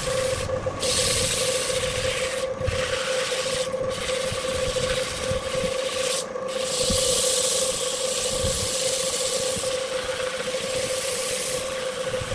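Hand sanding on a spinning wood lathe: a steady rasping hiss of abrasive paper against the turning wood, broken off briefly a few times in the first half, over the lathe motor's steady whine.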